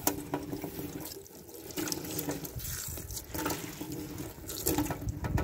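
Running water splashing into a white bathtub while a sponge scrubs mud off its surface.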